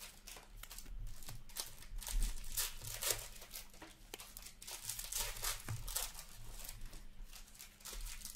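Clear plastic wrapper of an Upper Deck Ice hockey card pack crinkling and tearing as it is peeled open, with the cards slid out and handled. Many short, irregular crackles, over a faint steady low hum.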